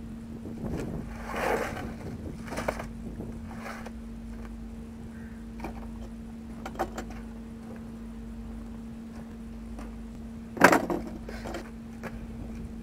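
Hand tools and loose metal parts clinking and knocking during a truck axle repair, with the loudest knock about eleven seconds in. A steady hum runs underneath.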